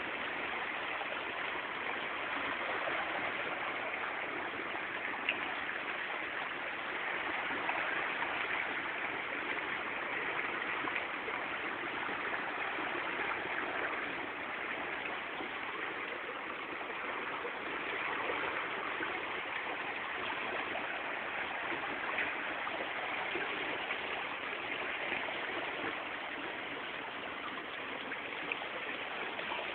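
Steady rush of churning, flowing water from a Vikoma Mini Fasflo oil skimmer at work collecting oil, with one faint tick about five seconds in.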